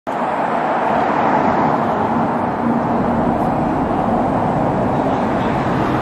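Road traffic: cars driving past on a multi-lane road, a steady hiss of tyres and engines.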